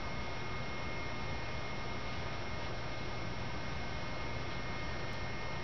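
Steady low electrical hum under an even hiss, with a faint thin high whine and no distinct events.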